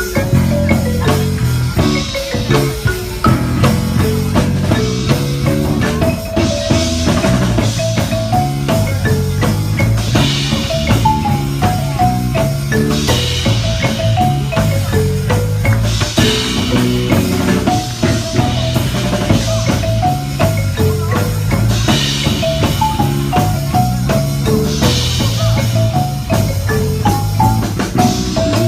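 Yamaha YM-400C concert marimba playing a bright, stepping melody over a five-string electric bass line, in an upbeat instrumental pop arrangement. Short percussion splashes come back every two to three seconds.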